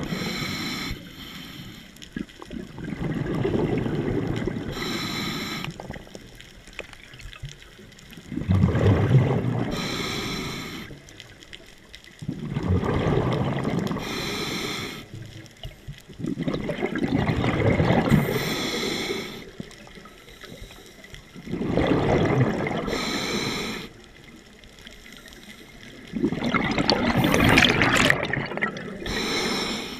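Scuba diver breathing through a regulator underwater. Each breath has a short hiss and a rumble of exhaled bubbles, repeating steadily about every four to five seconds, six breaths in all.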